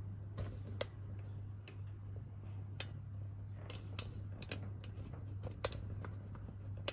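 Irregular light clicks and taps from a phone and its mount being handled and repositioned, most of them coming in a cluster past the middle, over a steady low hum.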